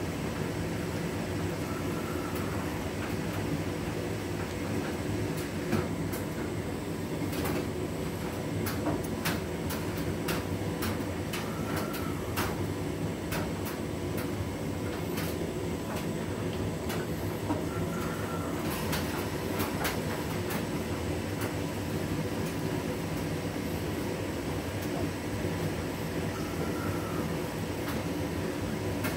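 Hotpoint Direct Injection front-loading washing machine in the wash phase of a cotton 40 °C cycle, its drum turning a wet load of a dog bed, toys and mops: a steady rumbling hum with scattered sharp clicks and knocks.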